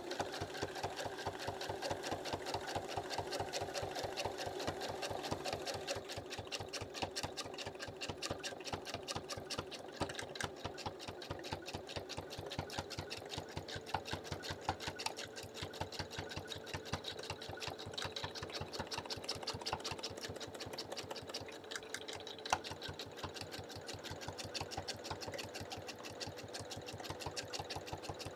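Domestic sewing machine stitching at a steady high speed during free-motion quilting: a rapid, even run of needle strokes that starts abruptly at the beginning. There is one sharper click about three-quarters of the way through.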